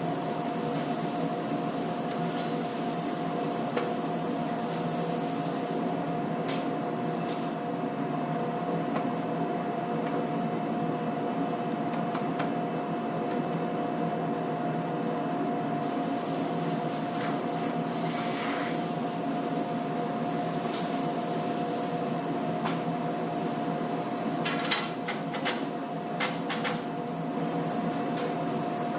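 Steady machine drone with a constant hum, with a few quick knocks near the end.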